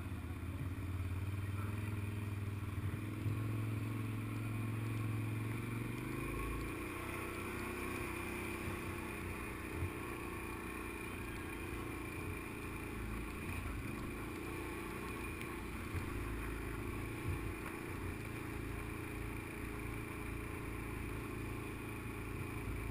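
Quad bike (ATV) engine running steadily under way, heard close up; the engine note shifts up about six seconds in.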